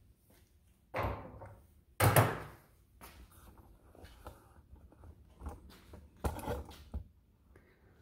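Handling knocks and thunks: two sharp thunks about one and two seconds in, the second the loudest, then quieter clatter and another pair of knocks near the end as the camera is picked up and carried.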